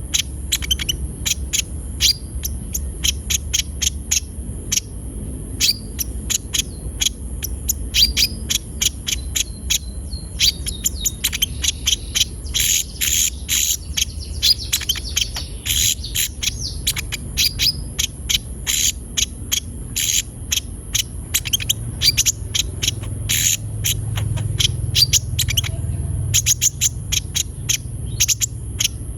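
Sunbird (kolibri ninja) singing: a fast, unbroken run of short, sharp high chirps, over a steady high-pitched whine and a low hum.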